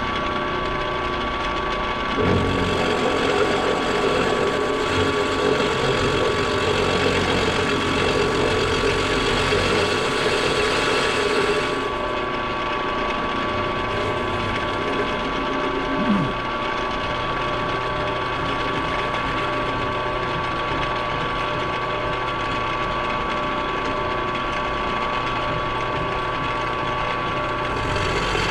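Milling machine running with a steady whine, louder and rougher from about two seconds in until about twelve seconds in, with a single short knock around sixteen seconds.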